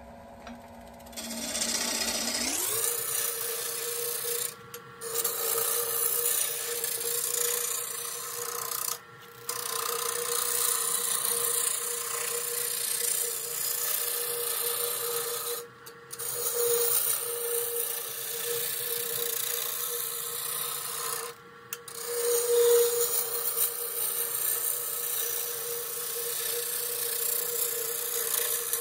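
Laguna Revo wood lathe spinning a dry tea tree (melaleuca) branch while a gouge rounds it into a cylinder: a steady hum from the lathe under the scraping hiss of the gouge peeling off shavings. The lathe's whine rises as it speeds up near the start, and the sound drops out briefly four times.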